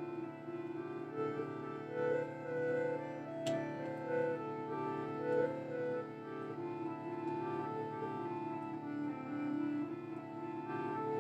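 Slow, sustained instrumental music: long held notes moving gently over a steady low drone, in a keyboard and bowed-string sound.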